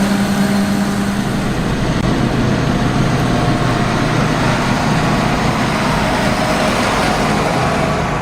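Combine harvester running steadily: a continuous heavy engine hum with a steady low tone that drops away about a second and a half in.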